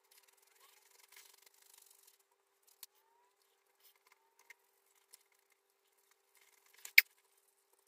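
Cloth rubbing polishing compound over a cured epoxy resin surface, sped up: faint scratchy rubbing broken by scattered small clicks, with one sharper click about seven seconds in.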